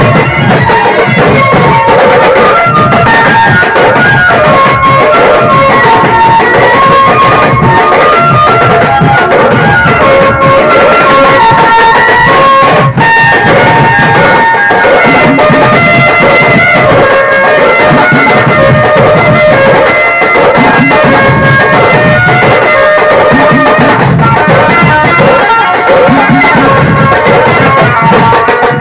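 Sambalpuri dulduli baja band playing loudly: barrel drums (dhol) beat a dense, driving rhythm with clashing hand cymbals, under a reedy melody line from a mahuri, the band's double-reed pipe.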